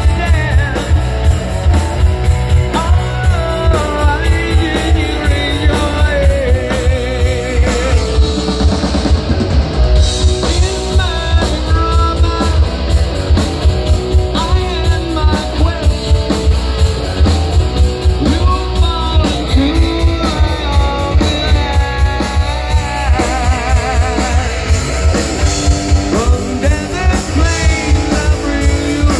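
Live rock band playing: electric guitars over bass and a drum kit keeping a steady beat, with singing.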